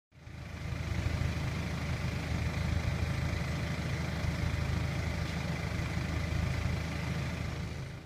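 An engine idling steadily, a low even hum.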